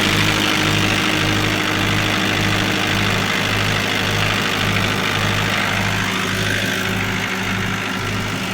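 Isuzu C240 four-cylinder diesel engine idling steadily, with a slow, even pulse about twice a second.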